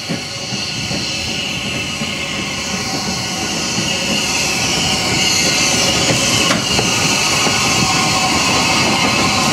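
LMS Stanier Class 8F 2-8-0 steam locomotive passing close by: a steady hiss of steam and the rumble of wheels on the rails, growing louder as it draws near, with a single sharp click about two-thirds of the way through.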